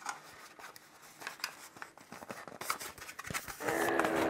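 Cardboard and paper packaging being handled and scraped while a desktop charger is unboxed, with light clicks and rustles. Near the end a louder, steady pitched hum is held for under a second.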